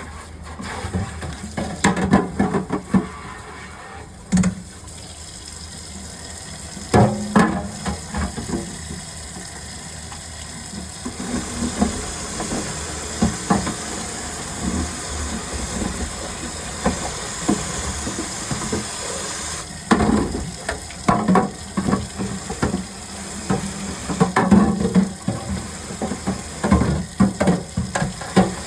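Water running from a tap into a sink for several seconds in the middle, among scattered knocks and clatter.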